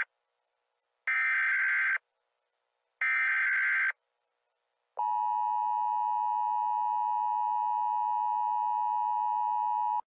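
Emergency Alert System alert tones: the last two of the three SAME header data bursts, each about a second long with a second's gap, then the steady two-tone EAS attention signal starting about halfway through and holding to the end.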